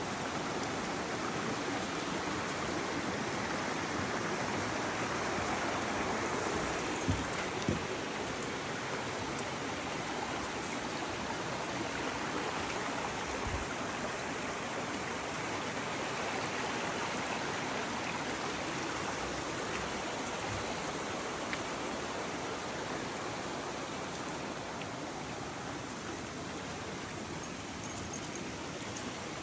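A creek flowing steadily over stones, an even rush of water, with a couple of brief knocks about seven seconds in.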